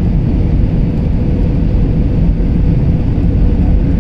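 Steady rumble of jet airliner cabin noise, engines and rushing air heard from a window seat during the descent to land, with a faint steady hum riding on it.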